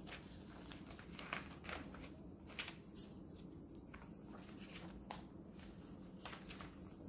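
Paper and cardstock pages of a handmade junk journal being turned and handled: a string of short, soft paper rustles and flicks, a few seconds apart, over a faint steady room hum.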